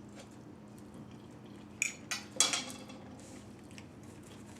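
Cutlery clinking against a dish, three quick clinks with a brief ring, over a faint steady hum.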